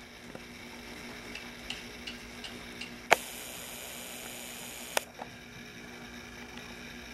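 Steady low hum of a large indoor room, with a few light ticks in the first three seconds and two sharp clicks about three and five seconds in, a hiss running between them.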